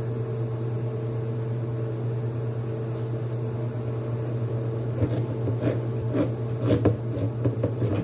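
A steady mechanical hum from a kitchen appliance runs throughout. From about five seconds in, a manual can opener clicks and scrapes irregularly as it is cranked around the rim of a can.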